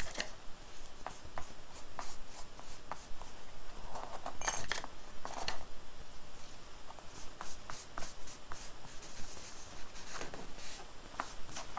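A rag rubbing a small plastic part on a tabletop, scrubbing off old glue with turpentine. Irregular scratchy rubs and light clicks, with longer rubbing strokes about four and five seconds in and again around ten seconds.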